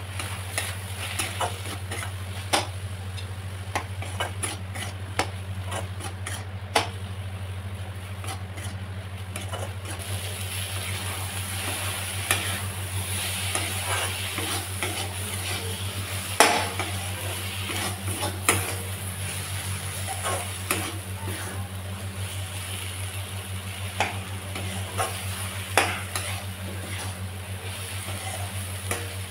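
A steel spatula scraping and knocking against a kadai while potatoes and spinach are stirred and fried. The hot pan sizzles, more strongly from about a third of the way in, over a steady low hum.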